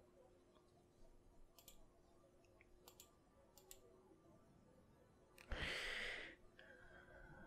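Near silence with a few faint clicks, then one short breath out onto a close microphone about five and a half seconds in.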